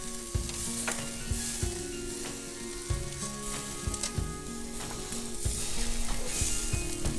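Sausages sizzling steadily on a hot charcoal grill grate, with a few sharp clicks of metal tongs against the grate as they are turned and lifted off.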